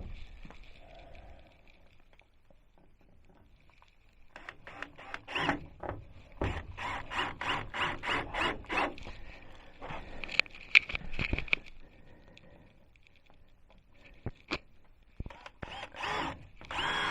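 Cordless drill driving screws into wood, in several short runs with pauses between.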